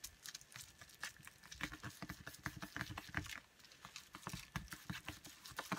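Fingers pressing and rubbing a card down onto bubble wrap: faint, irregular taps and rustles of card and plastic, with a few dull thumps.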